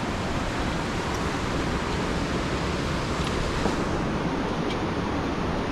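Rushing stream or river water: a steady, even rush.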